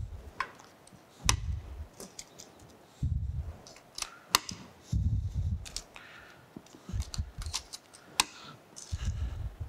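Plastic terminal blocks being snapped onto a metal mounting rail by hand: several sharp clicks spread through the few seconds, with duller knocks from the parts and panel being handled between them.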